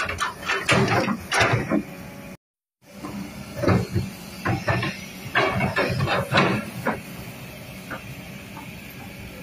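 Kobelco hydraulic excavator running while it works its boom and bucket: a steady engine hum and hiss under a run of irregular knocks and clanks, thinning out in the last couple of seconds. The sound cuts out for a split second about two and a half seconds in.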